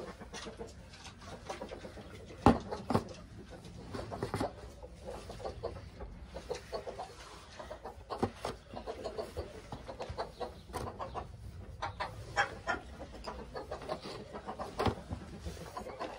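Chickens clucking, mixed with light clicks of eggs being set into a pulp egg tray; one sharp knock about two and a half seconds in.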